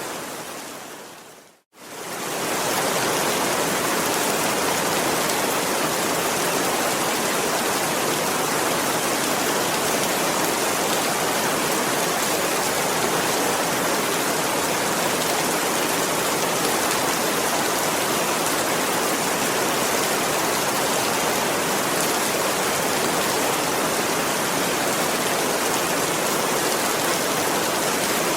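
Steady rain, an even hiss of water. Just under two seconds in it fades out to a moment of silence and quickly fades back up.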